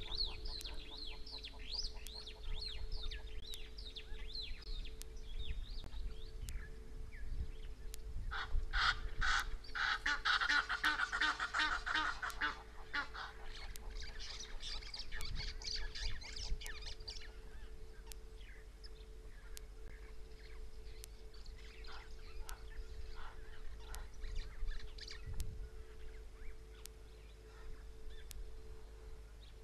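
Egyptian geese honking in a rapid harsh run, loudest from about eight to thirteen seconds in, with a shorter flurry just after. Small birds twitter high in the first few seconds, over a faint steady hum and low wind rumble.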